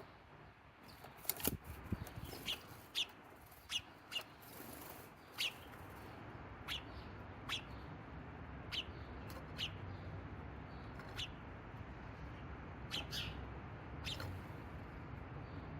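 A small bird giving short, sharp chirps one at a time, every second or so, with a sharper knock about a second and a half in.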